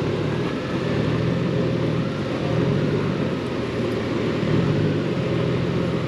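Motorcycle engine running steadily at low speed, a continuous low drone.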